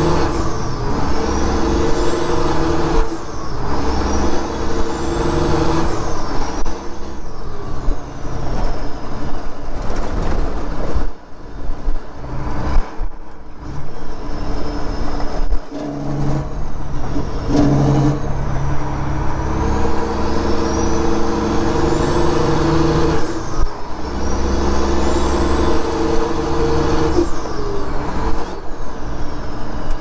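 Detroit Diesel engine of a Freightliner semi pulling through the gears of a 13-speed manual, heard inside the cab. A high turbocharger whistle rises over a couple of seconds and falls away at each shift, several times over.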